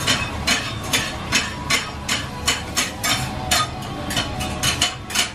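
Steady, even knocking, about three sharp knocks a second, from kitchen work behind a restaurant counter.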